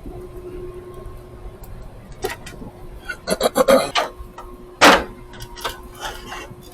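Rummaging and clattering of small hard items, like someone digging through tools and parts for zip ties, with a sharp knock about five seconds in. A faint steady hum runs underneath.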